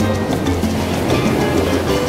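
Background music with sustained notes over a bass line that changes note every half second or so.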